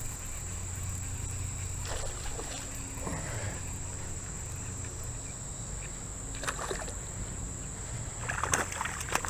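Steady high insect drone over a low water-and-wind rumble, with a few brief splashes and knocks as a hooked smallmouth bass is brought in.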